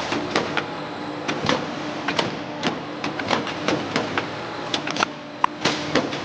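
Factory production-line machinery running with a steady hum, broken by many irregular sharp clicks and clanks.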